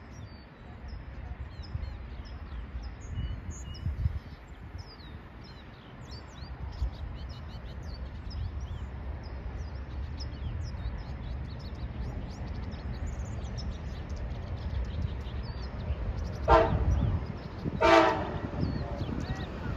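Approaching Coaster commuter train locomotive rumbling as it nears, then sounding its horn in two short blasts about a second and a half apart near the end. Small birds chirp throughout.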